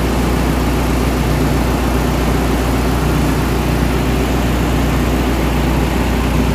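Ship's engine-room machinery running with a steady, loud drone and a low hum that does not change.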